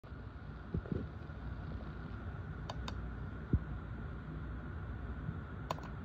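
Plastic buttons on a handheld ride-on toy car remote clicking, a pair of clicks near the middle and another pair near the end, with a few dull bumps from the remote being handled over a steady low hum.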